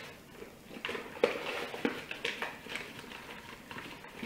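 Paper flour bag rustling as a measuring cup is scooped through the flour, with a run of irregular scrapes and light knocks starting about a second in.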